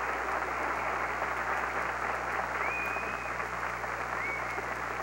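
Television studio audience applauding steadily, a dense, even clapping that greets the correct identification of the mystery guests.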